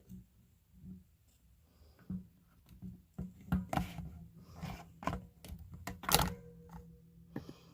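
Irregular clicks, taps and knocks of small parts and tools being handled on a work surface during pickguard soldering work. They come in a busy cluster in the second half, the loudest knock about six seconds in.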